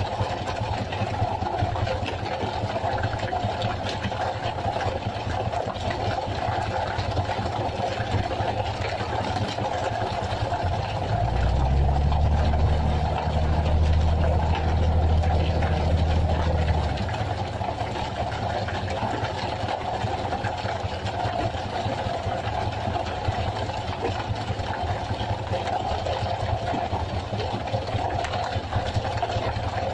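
Fishing boat's engine running steadily, with a deeper, louder drone that comes in about a third of the way through and lasts some five seconds.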